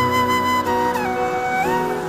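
Flute music in the style of a bansuri playing a slow melody of long held notes that slide smoothly from one to the next: the line steps down about a second in and climbs back near the end. Sustained low accompaniment tones sit beneath it.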